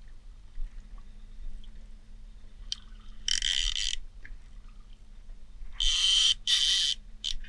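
Evinrude outboard running at trolling speed as a low steady hum, broken by four short bursts of rasping noise: one about three seconds in and three more close together near the end.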